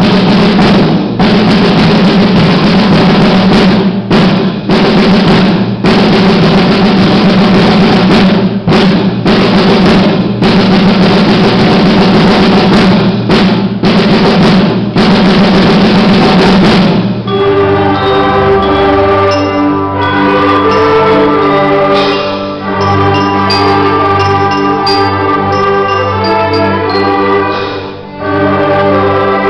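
Live ensemble music: a long, loud drum roll, then about seventeen seconds in the band comes in with sustained pitched chords.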